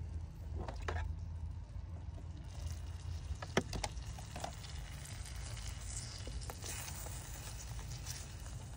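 Light clicks and knocks from handling an opened electric lunch-box food warmer and its metal tray, with one sharp click about three and a half seconds in. Near the end a silicone spatula scrapes softly in the tray. A steady low hum runs underneath.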